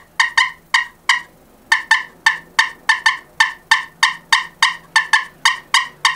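Glass pot turkey call worked with a striker, sounding a hen turkey's excited cutting: a fast, irregular run of sharp, short clucks, with a brief pause a little over a second in.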